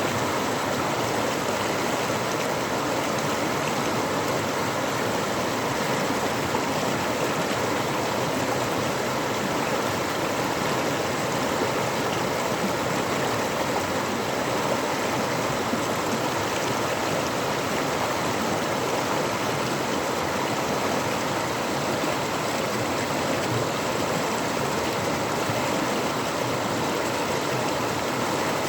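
Waterfall rushing: a steady, unbroken roar of falling water that holds an even level throughout.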